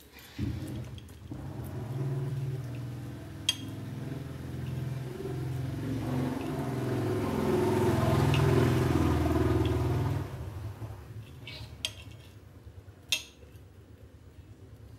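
A low engine rumble builds over several seconds and cuts off suddenly about ten seconds in. A few sharp clinks of a metal knife and fork against a cut-glass plate come through it and after it.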